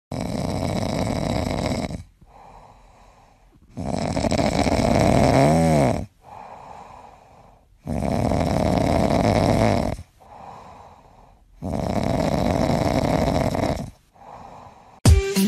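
A sleeping cat snoring: four long, loud snores about four seconds apart, with fainter breathing between them.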